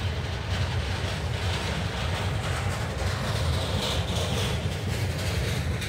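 Freight cars of a rail train, flatcars loaded with long steel rails, rolling past on the track with a steady low rumble of wheels on rail. A faint high squeal comes in around the middle.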